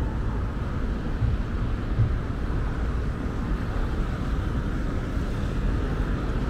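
Steady low outdoor rumble of wind buffeting the microphone, with irregular low thumps, over the hum of road traffic.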